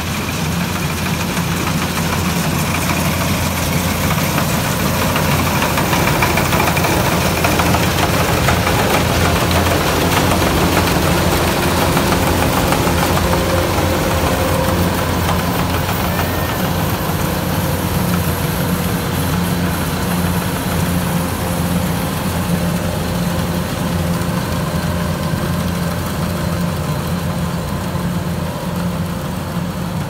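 Kubota DC-105X crawler combine harvester running steadily while cutting and threshing rice: a constant diesel engine drone mixed with the noise of its harvesting machinery, a little louder in the middle as it passes close by.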